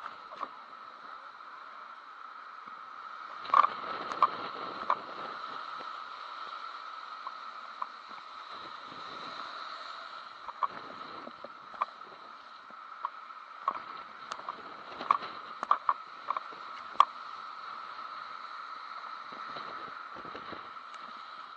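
Muffled wind and surf heard through a sealed waterproof camera housing, with a steady tone-like resonance and about a dozen sharp, irregular taps on the case.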